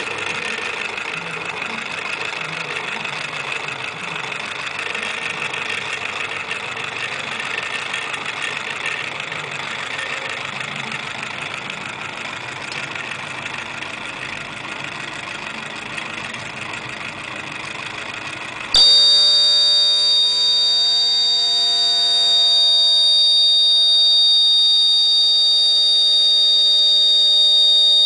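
Small electric motors of model trains running steadily along a track. About two-thirds of the way through, a loud electronic buzzer cuts in abruptly and sounds steadily: the collision-warning alarm of an anti-collision device, set off as the two trains come close together.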